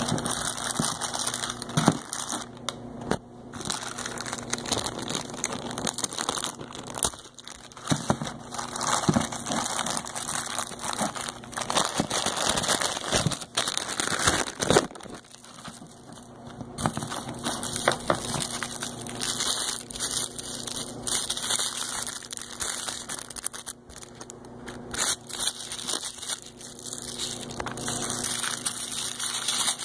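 Crinkly plastic packaging of a pair of LED safety glasses being worked open by hand: irregular rustling and crinkling with sharp crackles, stopping and starting in short pauses.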